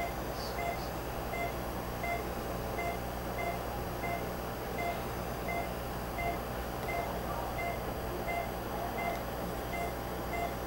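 Patient monitor beeping steadily with the pulse, a short electronic tone about every 0.7 seconds (roughly 85 beats a minute), over a steady low machine hum.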